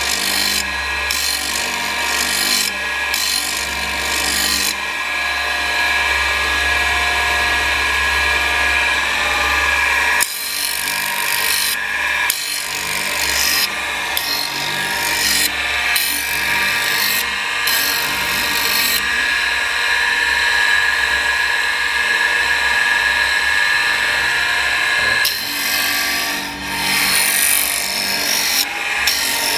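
ТЧФ-2 cutter-sharpening machine running: its electric motor spins the abrasive wheel with a steady hum while the wheel grinds the teeth of a steel milling cutter under coolant. The harsh grinding rasp starts and stops again and again as the cutter is fed into and away from the wheel.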